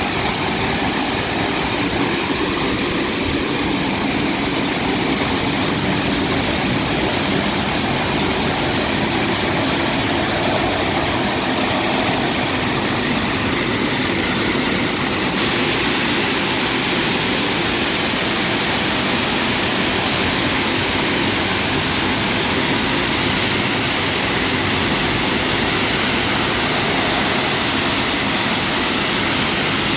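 WashTec SoftCare Pro rollover car wash running: a steady, loud rushing noise that grows brighter in its upper range about halfway through.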